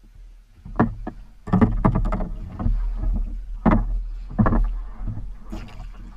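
Water slapping and splashing against a kayak's hull in irregular bursts as it is paddled through small waves, over a steady low rumble.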